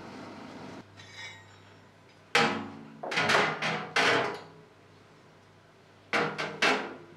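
Forged steel crosses set down on a metal oven baking tray: sharp metallic clanks and clatters with a short ring, several in the middle and two more near the end.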